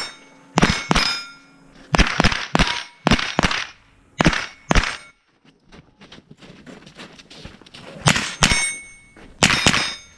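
AR-style semi-automatic rifle firing at steel plates: about a dozen sharp shots, mostly in quick pairs, several followed by the short ring of a steel plate being hit. The shots stop for about three seconds in the middle, then resume.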